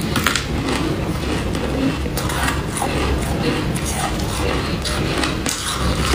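Close-miked crunching and chewing of freezer frost, a dense run of crisp, irregular crackles as the packed ice crystals break between the teeth.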